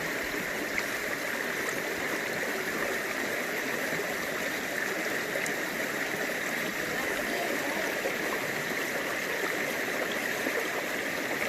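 Creek water running steadily over rocks and small waterfalls.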